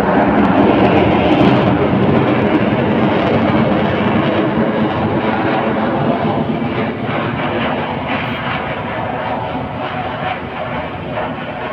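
A military aircraft flying past with a loud, steady rushing engine noise, strongest about a second in and then slowly fading as it moves away.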